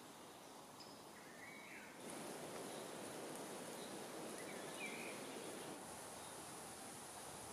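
Faint woodland ambience: a steady outdoor hiss that steps up a little about two seconds in, with two brief bird chirps, about a second in and again near five seconds.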